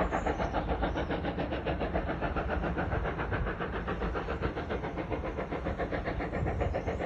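GWR Grange-class steam locomotive 'Betton Grange', a two-cylinder 4-6-0, working hard up a gentle incline: a rapid, even run of exhaust beats from the chimney, the sound of a steam engine under load.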